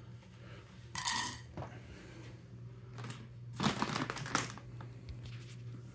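Two short spells of crinkling and light clatter, about a second in and again around four seconds in, from handling a bag of rabbit pellets and the feed, over a faint steady hum.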